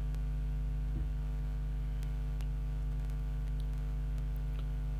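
Steady low electrical mains hum with its overtones, with a faint click about a second in.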